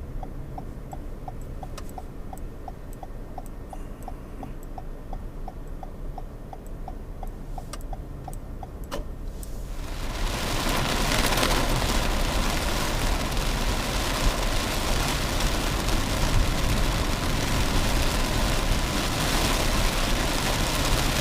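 Inside a moving vehicle: a turn signal ticks about twice a second over a low engine and road hum. About ten seconds in, a loud steady hiss of heavy rain on the vehicle swells up and covers it.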